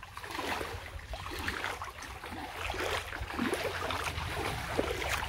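A person wading through knee-deep river water, each step splashing and sloshing in an irregular run.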